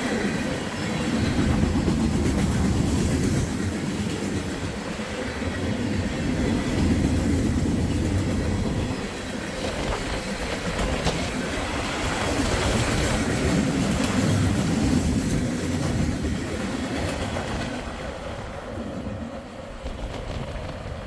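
Norfolk Southern freight train cars rolling past close by: a steady rumble of wheels on rail with faint clicks, easing off near the end.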